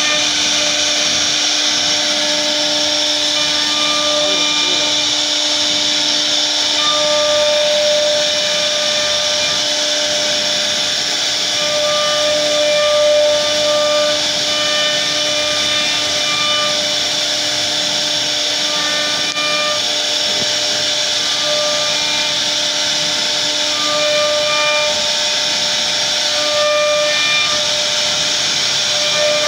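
CNC router spindle carving a relief pattern into wood, with a steady high whine and a cutting hiss. Shorter higher tones come and go as the head moves along the cut.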